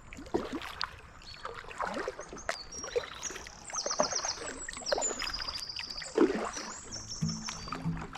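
Kayak paddle strokes dipping and splashing in the water, with birdsong of high repeated notes and trills over them from about three seconds in. Music comes in near the end.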